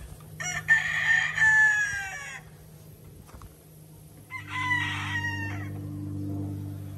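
Rooster crowing twice: a long crow with a falling end, then a shorter crow about four seconds in. A low steady hum comes in with the second crow.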